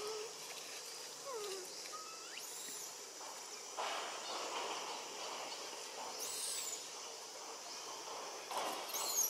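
Steady outdoor ambience with scattered short whistled animal calls, a few sliding down in pitch and others very high and thin. A brief noisy burst comes about four seconds in and another, louder one near the end.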